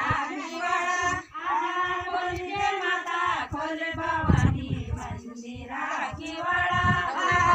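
Women singing a Garhwali Holi folk song together in long, drawn-out notes, with irregular low thuds about four seconds in and again near the end.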